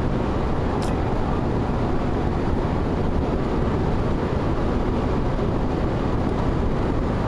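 Steady road and engine noise heard inside a car cruising at highway speed, with a brief click about a second in.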